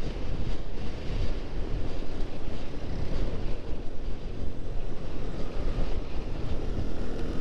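Wind rushing over the microphone of a motorcycle on the move, a steady noise with a low rumble underneath.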